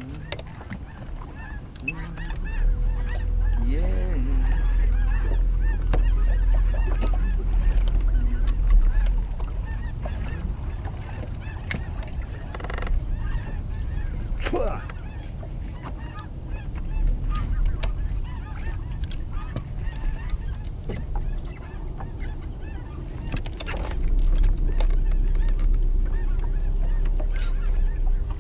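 A flock of birds calling over and over in short repeated notes, with wind rumbling on the microphone in two stronger gusts, one early on and one near the end.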